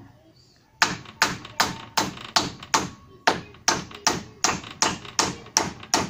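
Hammer nailing a wooden branch onto a roof frame: steady, sharp blows a little under three a second, starting just under a second in after a short pause.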